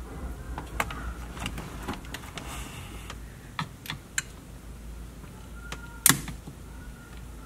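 Scattered light clicks and taps of tools against the plastic and metal parts of a gear shifter assembly being worked apart by hand, with one louder, sharp click about six seconds in.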